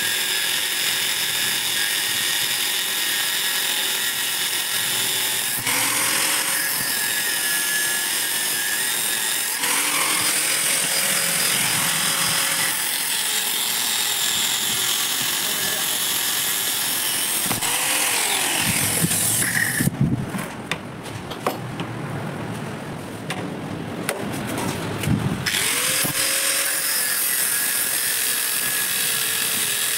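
Handheld angle grinder with a cutting disc cutting through a motorcycle's steel centre stand, a steady high grinding hiss whose pitch dips and recovers as the disc bites. About twenty seconds in, the cutting hiss stops for about five seconds, then resumes.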